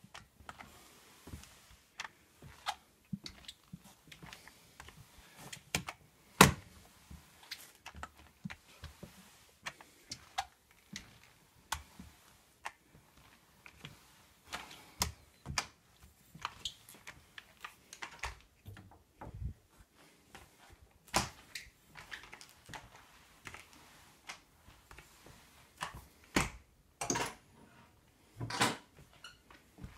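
Flat microfiber mop being pushed and turned across a hardwood floor: irregular clicks and knocks from the mop head and handle, a few louder ones near the end.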